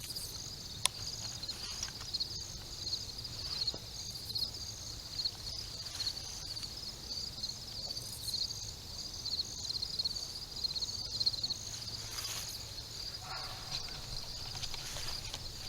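Insects chirping in a steady, pulsing high-pitched chorus, with scattered small clicks and taps over it.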